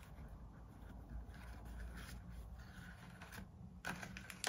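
Faint rustling of a paper envelope pouch and its twine being handled and adjusted, with a couple of light taps near the end, over a low steady hum.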